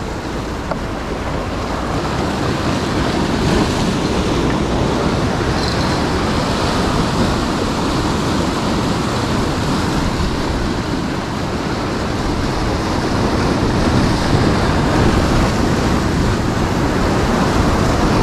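Sea surf washing and breaking against a rocky shoreline: a steady rushing that swells slightly louder toward the end.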